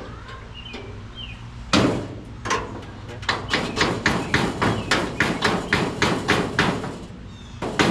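Hammer tapping a part into place on a 1928 Ford Model A body. One hard blow comes about two seconds in, then a steady run of taps about three a second, with a short pause near the end before they resume.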